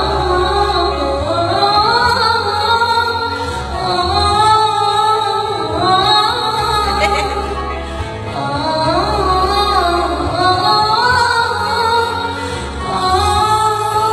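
Music: a slow melody carried by a woman's singing voice over a backing with long, steady bass notes.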